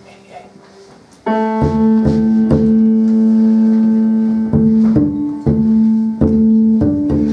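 Grand piano enters about a second in with a loud, long-held chord, then strikes several more chords, with the plucked upright bass of a jazz trio beneath it.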